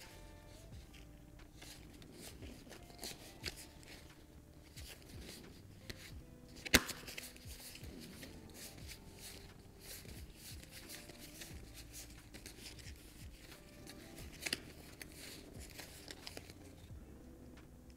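Monopoly Deal playing cards being handled and slid one by one from hand to hand, a run of light clicks and rustles with one much sharper click a little before halfway and another near three quarters through. Soft background music runs underneath.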